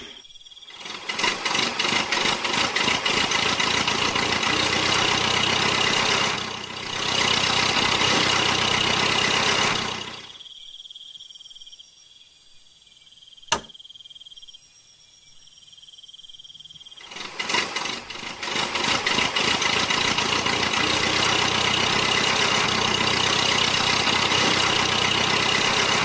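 Small electric motor and gears of a miniature DIY tractor running with a steady high buzz, in two long runs. The buzz stops for several seconds in the middle, where a single sharp click is heard.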